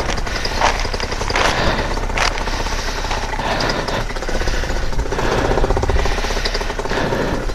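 Paramotor's two-stroke engine running steadily with a fast, dense pulsing beat.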